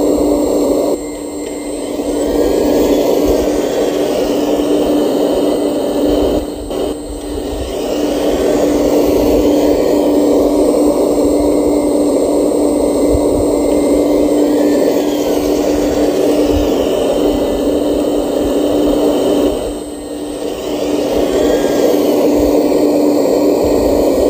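RC model Liebherr 970 excavator running: a steady electric whine that eases briefly about a second in, around seven seconds in and around twenty seconds in, as it digs and swings.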